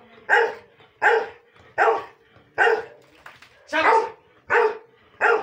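A dog barking over and over, about seven sharp barks at an even pace a little quicker than one a second, with a slightly longer gap midway.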